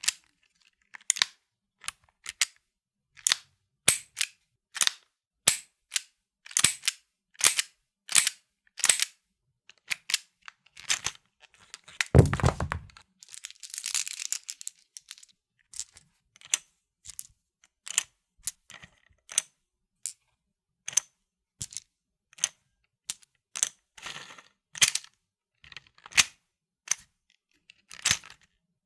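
Revolver mechanism worked without firing: a long series of sharp metallic clicks from cocking and dry-firing, roughly one or two a second. About twelve seconds in comes a heavier clack with a short rattle and a scraping smear after it, from the cylinder swinging out and being reloaded by hand, then the clicking resumes.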